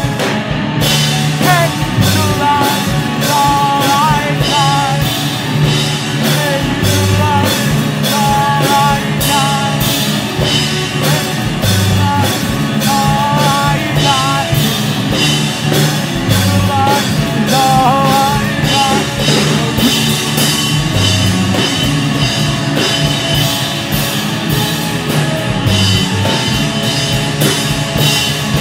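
Rock band playing live: drums, bass and electric guitars in a loud instrumental passage with no words. A lead melody bends and wavers over a steady drum beat and bass line.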